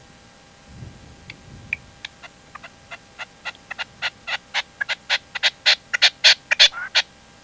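Red-legged partridge calling: a run of short, sharp notes that come faster and louder over about six seconds, then stop.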